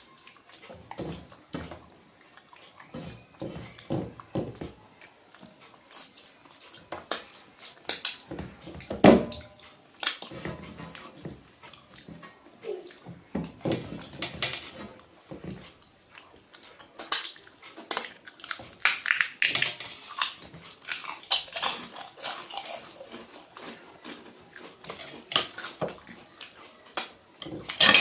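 Eating a meal: irregular chewing and crunching mouth sounds with sharp clicks and clinks against a plate.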